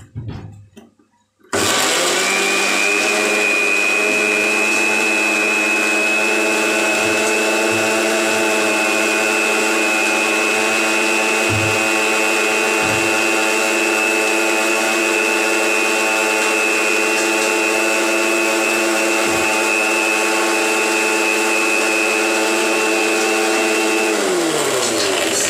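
Electric mixer grinder (mixie) with a steel jar running at full speed, wet-grinding coriander, mint leaves and green chillies with a little water into a paste. Its motor whine starts abruptly about a second and a half in, holds steady, and falls in pitch as the motor winds down near the end.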